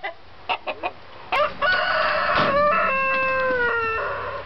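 Rooster giving a few short clucks, then one long crow that drops in pitch at the end.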